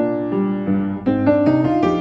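Upright piano played with both hands: a fughetta, several notes sounding at once and changing every fraction of a second, with a short lull about a second in.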